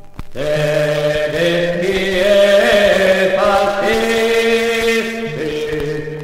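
Men's voices singing an Italian Resistance song together, holding long drawn-out notes, after a short break at the start.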